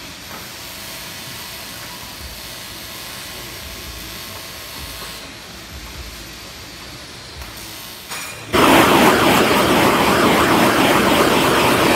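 Gas torch flame blowing loudly and steadily against rusted steel, starting suddenly about eight and a half seconds in; before that only a faint steady background.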